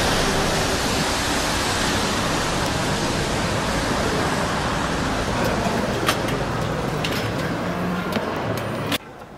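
Loud, steady city street ambience, a dense roar of traffic and crowd noise, with a few sharp clicks in the second half. It cuts off abruptly about nine seconds in.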